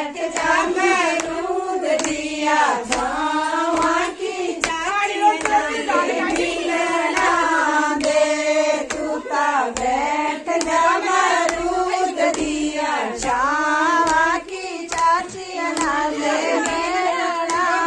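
Women singing a Himachali wedding folk song (vivah geet), the melody carried by women's voices, with steady hand clapping keeping the beat at about two claps a second.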